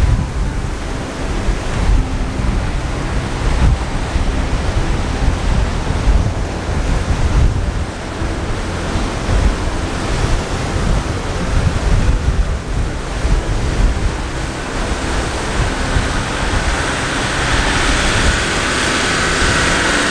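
Wind buffeting the microphone in uneven gusts over a steady rush of water; the rushing grows louder over the last few seconds.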